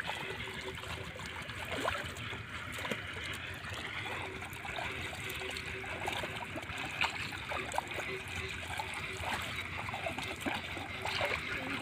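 Shallow paddy water trickling and splashing lightly as hands and feet move through it, with many small splashes scattered throughout.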